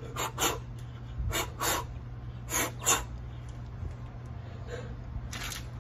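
Quick, forceful breaths through the mouth, mostly in pairs, repeating about every second and a half: a person breathing hard while curling a dumbbell.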